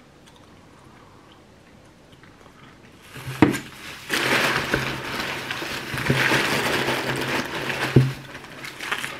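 Cardboard box and bubble-wrap packing rustling and crinkling close to the microphone as a bottle is taken out. It starts about three seconds in, with a sharp knock just after it starts and another near the end.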